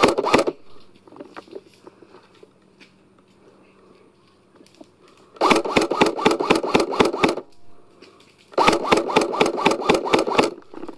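Airsoft gun firing on full auto: a brief burst at the very start, then two bursts of rapid shots, each about two seconds long, beginning about five and a half and eight and a half seconds in.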